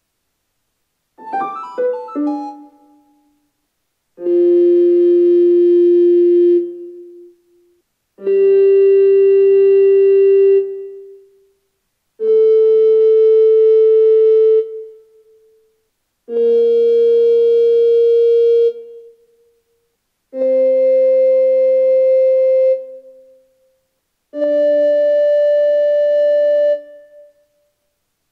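Treble recorder playing the F major scale upward slowly, one held note about every four seconds (F, G, A, B-flat, C, D), each with a short fading echo and a quieter lower tone under it. A quick run of short notes sounds about a second in.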